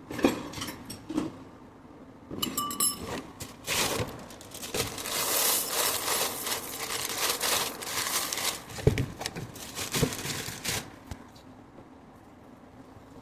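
Dry cereal poured into a bowl, a rattling hiss lasting several seconds, preceded by knocks and a brief clink of the bowl or box; it stops about two seconds before the end.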